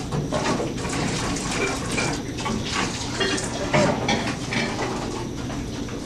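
Commercial kitchen noise: food sizzling in a wok, with scattered clinks and scrapes of utensils over a steady low hum, and a louder clatter a little past halfway.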